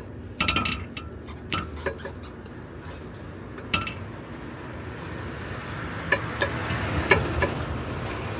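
A series of sharp metallic clinks and clicks, with a hiss that rises in the second half.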